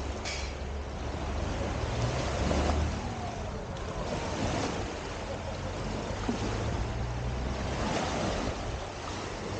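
Small waves breaking and washing up a sandy beach, a steady surf wash that swells and eases, with wind rumbling on the microphone at times.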